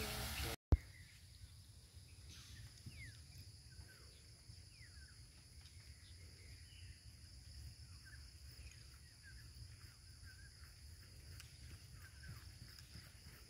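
Faint open-air ambience: birds chirp now and then over a steady high insect hum and a low wind rumble, after a single sharp click near the start.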